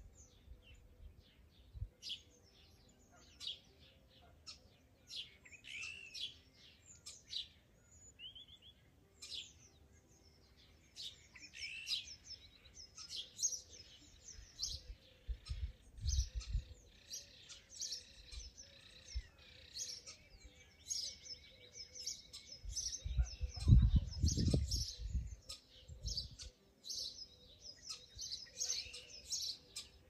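Several songbirds singing and chirping together, with many short phrases overlapping. A low rumble breaks in briefly near the middle, and a stronger one about three-quarters of the way through is the loudest sound.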